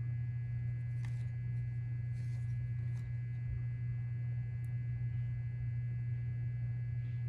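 A steady low hum runs throughout, with a few faint soft rustles and ticks of baseball trading cards being flipped through by hand.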